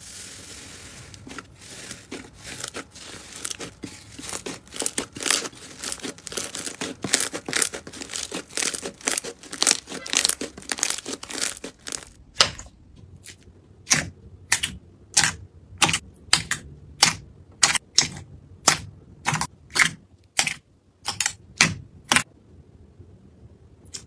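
Slime being squeezed and pressed by hand, giving dense crackling and popping for about the first half, then separate sharp pops about two a second that stop shortly before the end.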